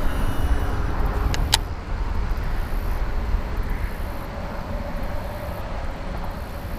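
Wind buffeting the microphone in a low, steady rumble over open water, with two sharp clicks about a second and a half in.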